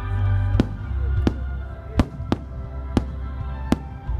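Aerial fireworks shells bursting with sharp cracks, about six in quick succession, over steady music with a heavy bass.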